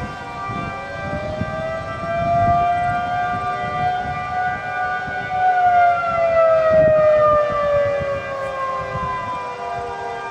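Several outdoor tornado warning sirens sounding together, their steady tones overlapping; the loudest siren's pitch slides slowly downward through the second half and starts climbing again near the end. Wind buffets the microphone underneath.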